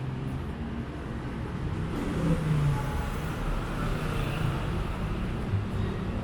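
Street traffic: vehicle engines running past, with a steady hum of road noise.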